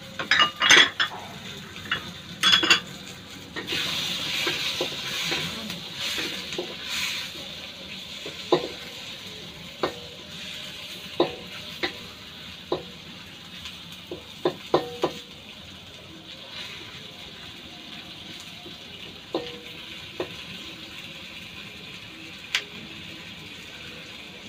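Wooden spatula stirring tomato, onion and garlic in a stainless steel wok, knocking against the pan over a steady, light sizzle of the sauté. A few loud clatters come near the start, a stretch of scraping follows, then single sharp knocks about once a second.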